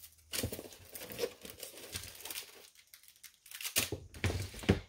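Plastic packaging crinkling and rustling as it is handled, in irregular bursts: a short lull in the middle, then louder crinkling near the end.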